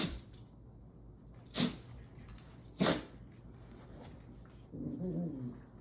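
A dog sneezing three short, sharp times about a second and a half apart, then a brief pitched vocal noise from the dog near the end.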